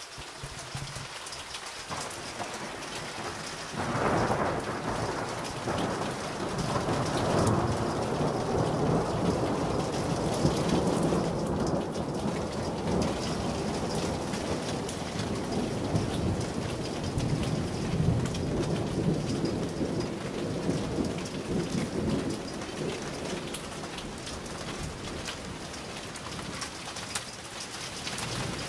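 Steady rain falling, with a long roll of thunder that comes in suddenly about four seconds in. The thunder rumbles on for well over ten seconds and slowly dies away, leaving the rain.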